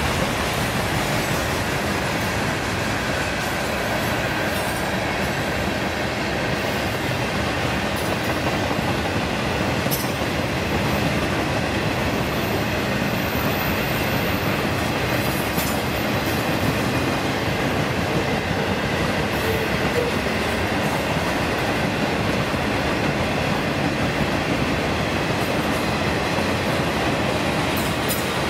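Railroad cars of a freight train rolling past: a steady, loud rumble of steel wheels on rail, with a faint high wheel squeal and occasional clicks.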